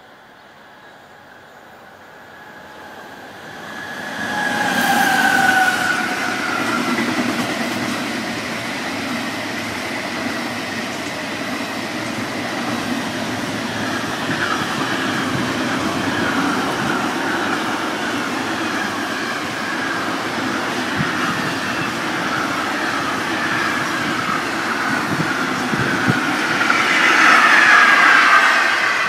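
Freight train of container and swap-body wagons passing, a steady rumble with wheels clattering over rail joints. A short squeal that falls in pitch comes about five seconds in, and louder wheel squeal near the end.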